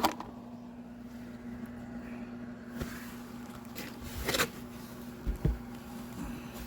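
Handling noises of refitting screws and trim on a car's front end: a few light clicks and knocks, then two low thumps about five seconds in, over a steady low hum.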